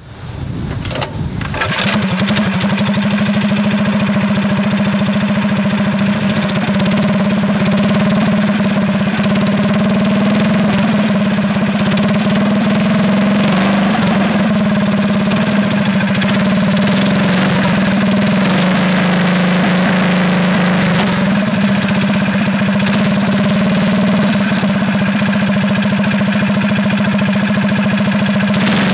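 Predator 212cc single-cylinder engine fitted with a stage 1 kit (open cone air filter and exhaust header) starting in the first couple of seconds, then running loudly at a steady speed.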